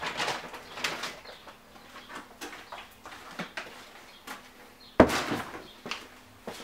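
A plastic bait bag and a bucket being picked up and carried, with irregular crinkling and scraping and a sharp knock about five seconds in.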